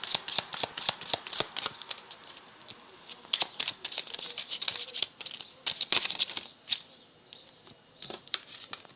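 Tarot cards being shuffled and handled: rapid papery clicks and flicks, in two busy spells with a short lull between, thinning out near the end.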